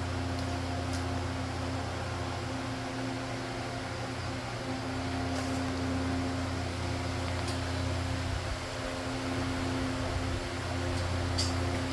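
Steady machine hum, like a shop fan or air conditioner running, with a few faint clicks and knocks.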